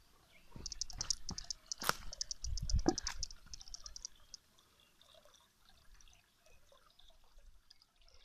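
Water trickling and dripping, with a rapid, even trill of high ticks for about three and a half seconds starting under a second in. Low bumps and a few sharp knocks of wind and handling on the microphone in the first three seconds.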